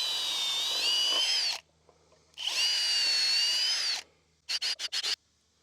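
Cordless drill boring pilot holes into hard seasoned white oak: two runs of about a second and a half each with a high motor whine, then a quick string of short blips near the end.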